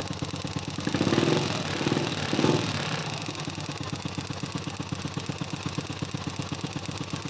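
Honda Biz 100's small single-cylinder four-stroke engine running after a kick start, idling steadily with a couple of brief rises in revs in the first few seconds.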